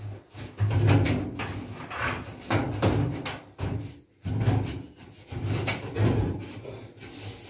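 Flexible aluminium duct pipe crinkling and scraping as it is worked by hand onto a kitchen chimney hood, in a string of irregular rubbing bursts.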